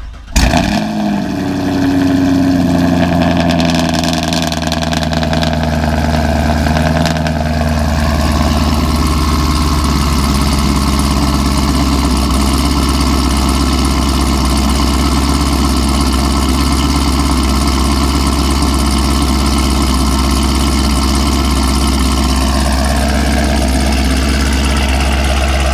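Cold start of a 2018 Camaro SS's 6.2-litre LT1 V8 through Texas Speed 1-7/8 in long-tube headers and an MBRP axle-back. The engine catches right at the start with a loud flare, then settles into a steady fast cold idle. The idle steps down in pitch about eight seconds in and again near the end.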